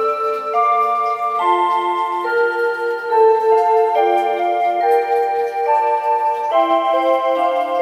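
Seiko quartz wall clock's electronic melody chime playing a tune: a melody of clear, bell-like notes over a quickly repeating lower accompaniment note.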